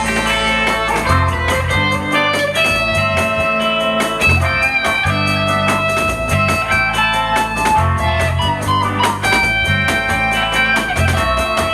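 Rock band instrumental break, a guitar playing a melodic lead over bass guitar and a steady drum beat.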